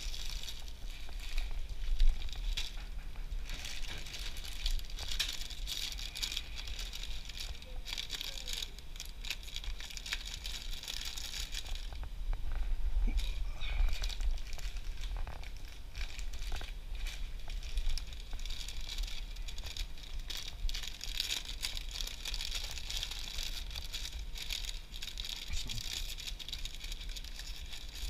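Plastic snack bags crinkling and rustling as they are handled while stocking a snack vending machine, with scattered light clicks and knocks, over a low steady hum.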